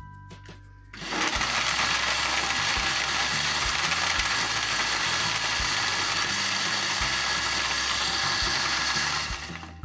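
Electric blender running, blending cantaloupe, ice cubes and cold water into a sherbet. It starts about a second in, runs steadily, and stops near the end.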